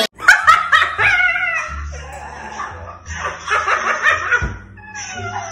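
A girl laughing in fits, with music playing underneath.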